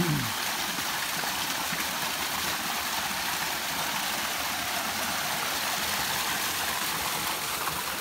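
Running water of a forest stream, a steady rushing hiss.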